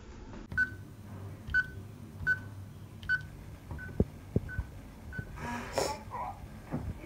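Electronic keypad door lock beeping as the code is keyed in: seven short beeps at one pitch, unevenly spaced, the last three fainter, with a couple of sharp clicks between them. A short burst of noise follows about six seconds in.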